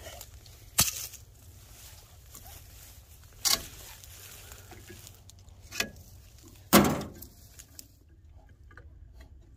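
Hand tools knocking and clanking during work on a vehicle's wheel: about four separate knocks with a few small ticks between, the loudest nearly seven seconds in.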